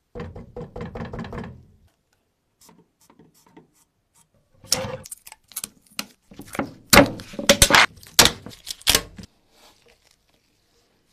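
Gloved hands handle a bottle-moulded axe handle, making low knocks and rubbing, then a blade cuts and peels away the bottle mould, making a string of sharp crackles and scrapes.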